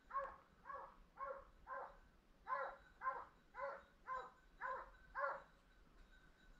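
Distant hunting hounds giving tongue in a steady series of barks, about two a second, with a slight break about two seconds in and stopping near the end: the pack is running on a wild boar's trail and coming closer.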